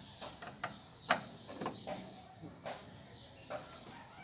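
Scattered light clicks and taps of a screwdriver working the plastic retaining clips of a pickup's chrome front grille, the loudest about a second in. A steady high-pitched hiss runs underneath.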